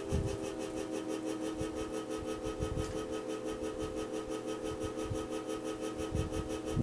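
Worn 1984-85 Galaxy 20-inch box fan motor running with a steady hum and a fast, even pulsing, with a few low thumps. The owner says the bearings are seizing up and the motor sounds near death.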